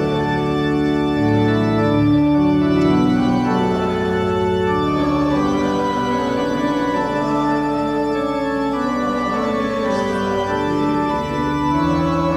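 Organ playing a hymn in held chords that change every second or so.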